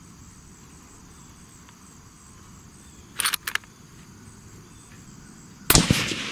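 Suppressed Savage 110 Ultralite rifle in 280 Ackley Improved firing one shot near the end: a sharp report followed by an echo rolling away. A few short clicks come about three seconds in, over a steady faint buzz of insects.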